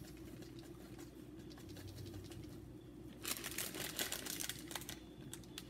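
Dry pancake mix pouring out of a metal measuring cup into a bowl: a soft, pattering hiss of fine ticks that starts about three seconds in and lasts about a second and a half.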